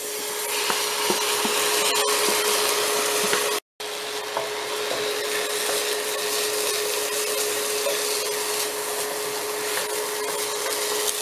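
Dry rice grains frying in melted ghee in a nonstick pan, a steady sizzling hiss with a wooden spatula stirring and scraping the grains against the pan. The sound cuts out briefly about four seconds in.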